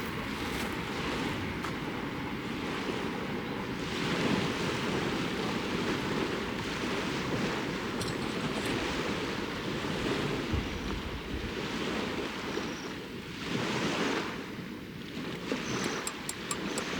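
Lake waves washing onto the shore in irregular surges, with wind blowing.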